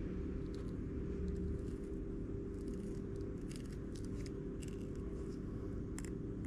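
Faint scattered clicks and snips of scissors and handling during the dissection of a jack mackerel, over a steady low background hum.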